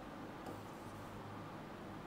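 Quiet room tone with a low steady hum and a faint click about half a second in.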